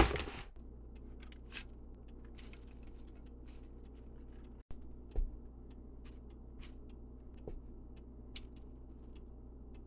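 Kitchen handling noises during meal preparation: scattered light clicks and knocks, with a small thump about five seconds in, over a steady low hum. A short, louder noisy clatter at the very start is the loudest sound.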